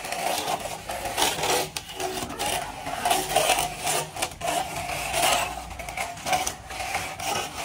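A straightedge scraping and rubbing against fresh cement render, in irregular strokes.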